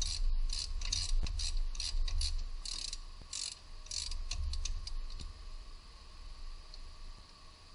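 Hand ratchet wrench being swung back and forth on a bolt at the steering knuckle. It makes a quick run of clicks on each back-stroke, about two or three runs a second. The clicking thins to a few single clicks about four to five seconds in and then stops.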